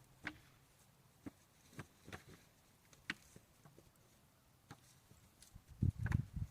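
Scattered light knocks and clicks from drywall sheets being handled and stacked, with a short run of heavier thumps about six seconds in.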